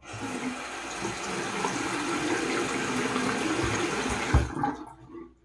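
Bathroom sink tap running steadily. A few low knocks come about four seconds in, and the water stops shortly before the end.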